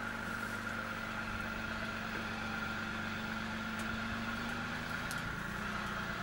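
Off-road 4x4's engine running at low, steady revs, its note dropping slightly about two-thirds of the way through.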